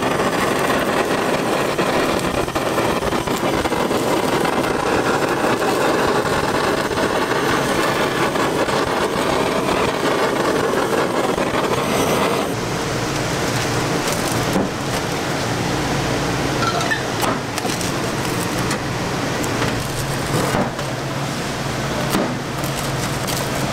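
Handheld blowtorch flame hissing steadily as it browns the cheese and potato topping of a pizza, stopping a little under halfway through. Then a low kitchen hum with a few knocks, and a large rocking pizza blade pressed down through the crust near the end.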